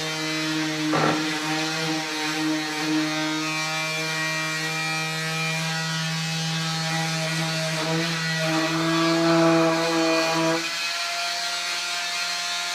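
A small electric motor humming steadily, such as the motor of paint-spraying equipment for the varnish. It swells for a couple of seconds past the middle and settles back a little softer near the end.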